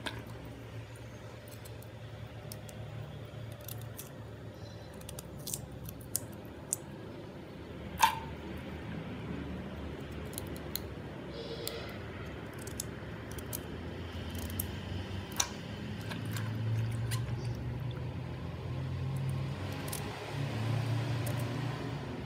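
Hands rubbing and handling soaked Chinese potatoes in a steel bowl of water: wet squishing with scattered clicks and taps against the steel, the sharpest about eight seconds in. The rubbing grows louder in the second half, over a low steady hum.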